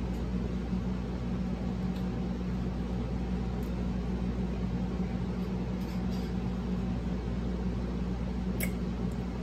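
Steady low hum of room noise with a constant faint tone. Over it come a few faint soft clicks and squishes of fried fish being picked apart with the fingers and chewed, the clearest one near the end.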